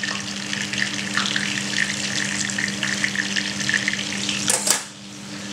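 Butter foaming and sizzling in a small frying pan where lamb brains have been pan-fried meunière, with a steady crackle of small pops and a low steady hum underneath. A short clatter comes about four and a half seconds in, after which the sizzling drops away.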